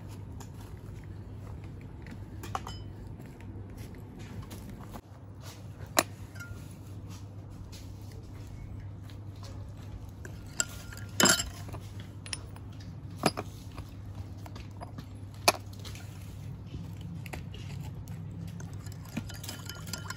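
A spoon clinking against a ceramic bowl and small ceramic spice pots with their lids, in a handful of separate clinks, one a brief rattle about eleven seconds in, over a low steady hum.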